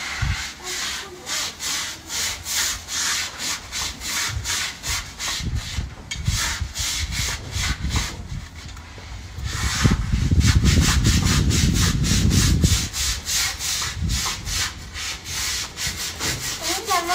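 Long-handled deck brush scrubbing a wet, soapy concrete floor along the base of a wall, in brisk, rhythmic back-and-forth strokes. A low rumble swells under the scrubbing for a few seconds in the middle.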